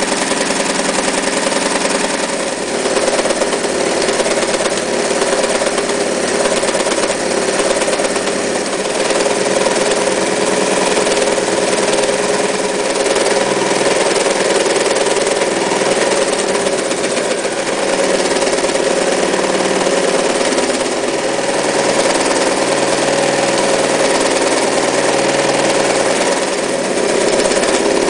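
Mitsubishi MAZ4 electric sewing machine running steadily, its motor and needle mechanism making a continuous mechanical hum. The hum shifts briefly about two and a half seconds in and again near the end.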